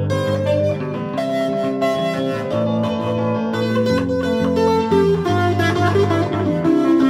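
Electric guitar being played: a line of single notes over held lower notes.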